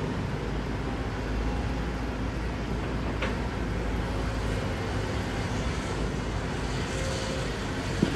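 Heavy earthmoving machine's engine running steadily as a low rumble, with a brief sharp sound about three seconds in and a click near the end.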